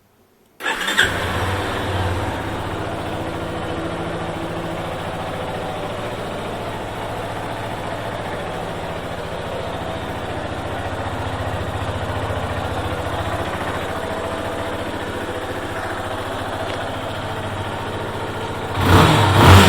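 Yamaha Fazer 250's single-cylinder engine, on its stock exhaust, starting about a second in and then idling steadily. Near the end it is revved, rising sharply in loudness.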